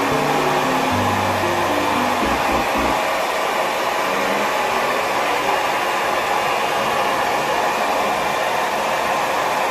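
Handheld hair dryer blowing steadily at close range, drying a freshly dyed beard as it is brushed.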